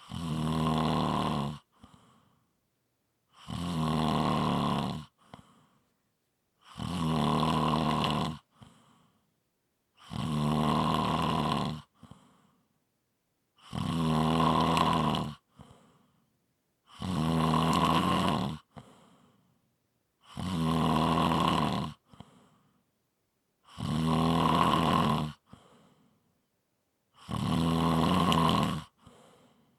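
A person snoring in a steady, even rhythm: nine loud snores, each about a second and a half long and coming about every three and a half seconds. Each snore is followed by a short, faint breath.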